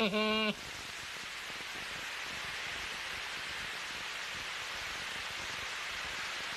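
Steady, even hiss of rain in the soundtrack, after a short held voice that breaks off about half a second in.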